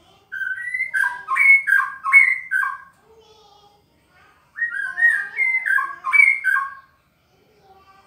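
White-rumped shama (murai batu) singing two loud phrases of whistled notes that jump up and down in pitch, each about two seconds long, the second starting about halfway through.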